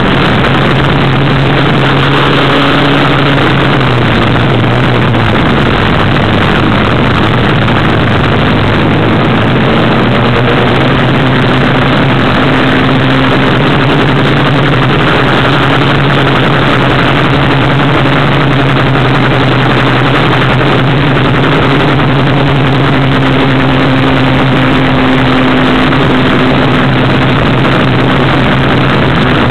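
Off-road buggy's engine running loud and fairly steady while the buggy drives along a gravel track, heard from the driver's seat with a constant rush of road and wind noise.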